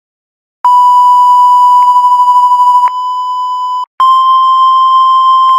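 Emergency alert attention tone: a loud, steady, high electronic beep starting about half a second in. It drops in volume about three seconds in, cuts out briefly near four seconds, then resumes at a slightly higher pitch.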